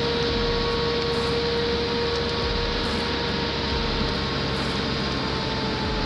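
A heavy machine's engine running steadily, with a constant whine held on one pitch.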